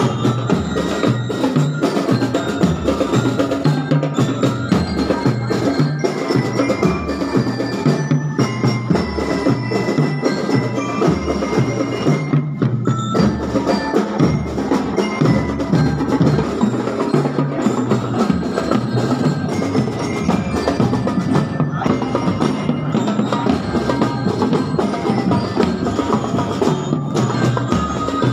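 Drum and lyre corps playing a march: bell-lyres ringing the tune over a regular drum beat.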